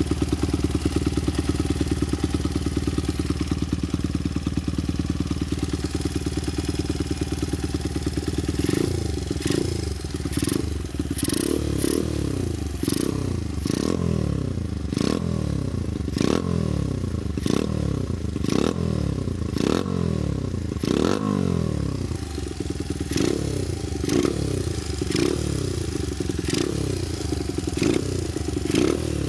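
Honda Ape 50's single-cylinder four-stroke engine idling steadily, then from about eight seconds in revved in repeated short throttle blips, each rising and falling in pitch, about one every second and a half. The engine runs with no abnormal noise.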